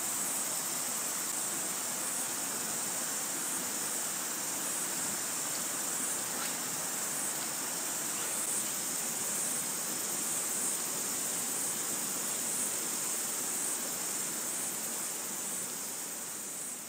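Steady rush of a river running over rocks, with a constant high chirring of insects above it that pulses gently. The sound begins to fade near the end.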